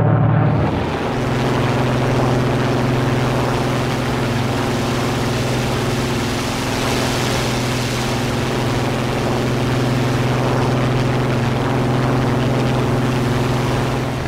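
Propeller aircraft's piston engine droning steadily in flight, a low, even hum with a few overtones over a rushing noise.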